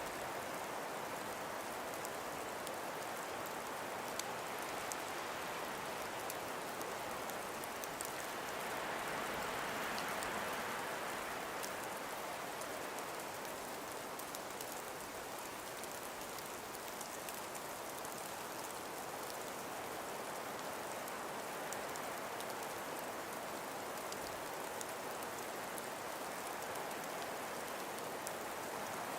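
Steady winter wind hissing through frost-covered forest trees, swelling in a gentle gust about ten seconds in, with faint scattered ticks.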